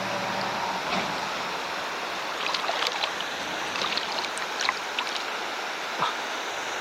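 Steady rush of flowing river water with a scatter of small splashes and ticks in the middle, and a knock near the end. A low hum fades out about a second in.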